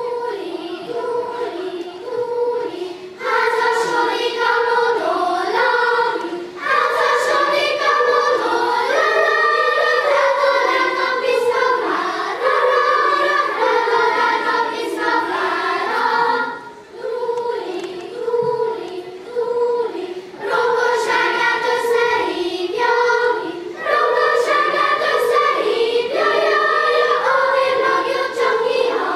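Primary-school children's choir singing in Hungarian, phrase after phrase with short breaks between phrases.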